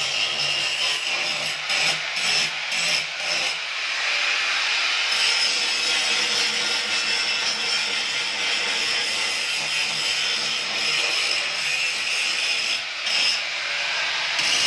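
A handheld power tool working against a plywood speaker cabinet: a steady abrasive noise, broken by a few short stops and starts in the first few seconds and again near the end.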